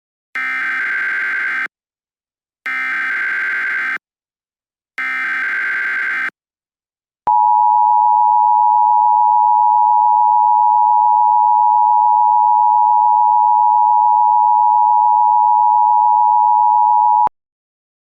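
Emergency Alert System SAME header: three harsh, buzzing data bursts, each just over a second long, then the steady two-tone EAS attention signal held for about ten seconds and cut off sharply. This sequence announces the start of a new emergency alert.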